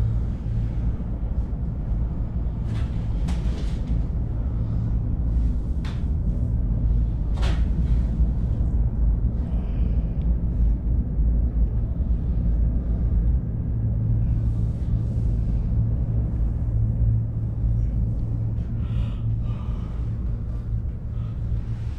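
Steady low rumble and hum inside a moving gondola cabin travelling along its cable, with a few short sharp clicks in the first eight seconds.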